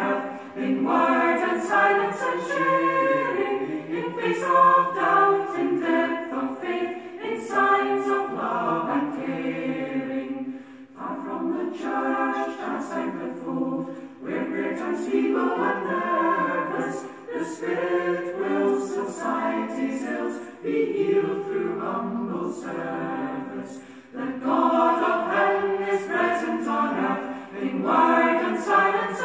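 A choir singing unaccompanied, in several voices at once, phrase by phrase with short breaks between the lines.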